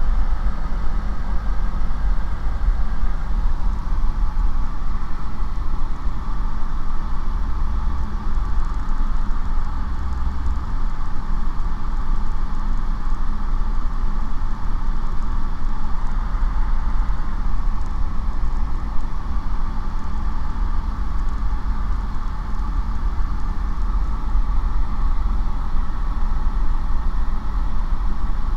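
Light aircraft's piston engine and propeller droning steadily at cruise power, heard from the cockpit.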